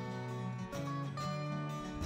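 Instrumental background music with plucked-string notes over a bass line.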